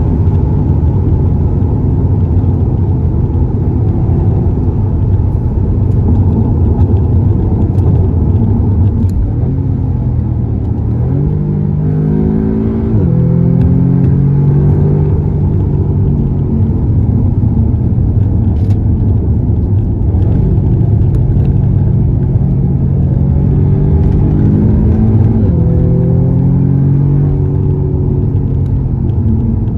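Car engine and tyre noise on the open road, a steady loud rumble. The engine note climbs under acceleration and drops back twice, about 11 and 24 seconds in, then starts climbing again near the end.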